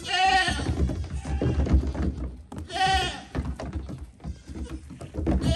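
Goat kids' hooves knocking and clattering on the hollow hull of an upturned dinghy as they jump on and off it. Two wavering goat-kid bleats sound, one at the start and one about three seconds in.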